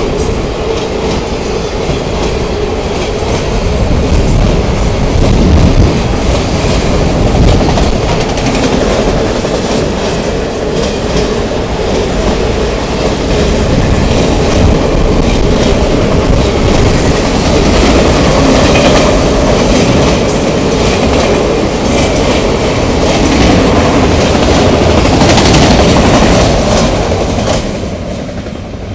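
Freight train of autorack cars passing close by: a loud, steady rumble with the clickety-clack of wheels over the rails. Near the end the last car goes by and the sound fades away.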